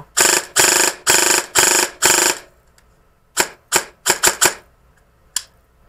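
Airsoft electric gun gearbox under a Gate Titan control module cycling on full auto. It fires about five short bursts of rapid clacking, then a string of about seven single clacks.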